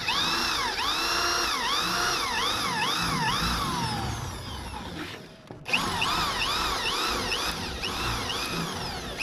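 Electric drill driving a washer-headed roofing screw through tape into a polycarbonate panel joint. The motor's pitch rises and falls over and over as the trigger is squeezed and eased. It dips briefly about five seconds in, then runs again.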